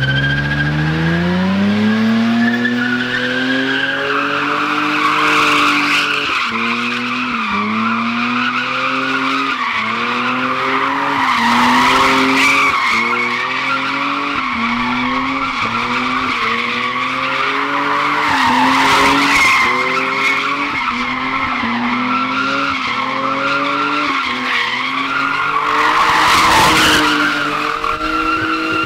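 A sedan doing donuts on asphalt. Its engine revs climb over the first couple of seconds and then rise and dip about once a second, while the rear tyres squeal without a break as they spin and burn into smoke.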